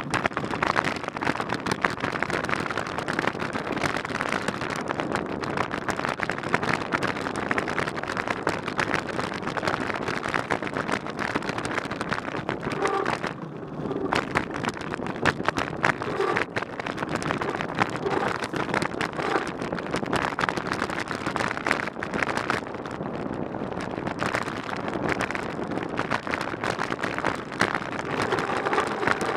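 Mountain bike rolling along a dirt trail: knobby tyres crunching over packed dirt and loose gravel, with a constant crackle of small rattles over the bumps and wind buffeting the microphone. The noise eases for a moment about halfway through, then picks up again.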